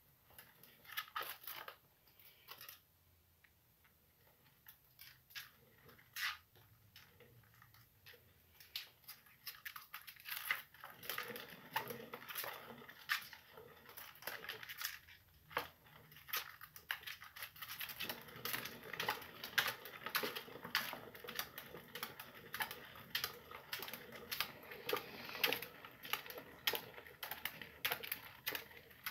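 Sugar glider running in a plastic exercise wheel: the quick clicking and clattering of its feet on the wheel and the wheel turning. The clicks are scattered at first and become a steady, fast clatter from about ten seconds in.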